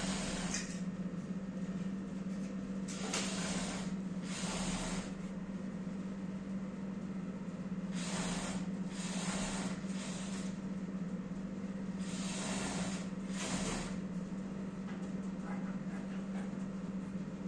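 Ballpoint pen scratching across taut fabric in an embroidery hoop in short repeated strokes, about half a second each, over a steady low hum.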